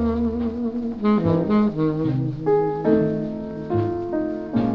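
Jazz ballad played on tenor saxophone with piano and double bass, a soft stretch of held notes that step from pitch to pitch.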